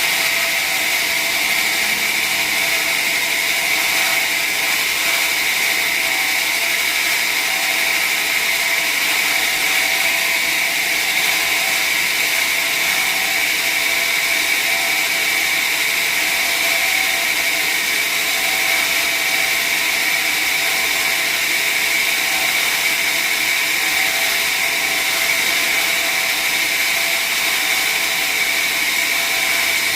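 Large sawmill saw running steadily through acacia wood: a constant hiss with a steady high whine, unchanged throughout.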